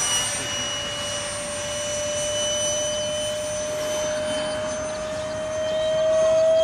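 Electric ducted-fan motor of an RC F-35C model jet flying overhead, a steady high whine. It grows louder and rises slightly in pitch near the end as the model comes back toward the listener.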